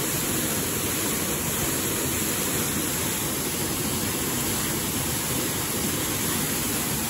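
Steady rushing of water pouring from a dam's discharge outlet, an even, unbroken noise.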